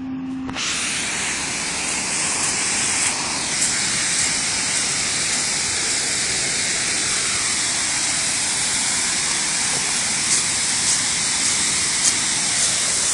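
Creek in flood after heavy rain, water rushing steadily over a small falls and rapids; a loud, even hiss of fast water with a few faint splashes.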